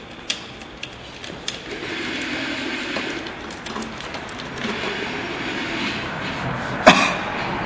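Light clicks of battery leads and terminals being handled in an electric scooter's battery compartment, with a steady rumbling background noise that comes in about two seconds in. A single sharp knock near the end is the loudest sound.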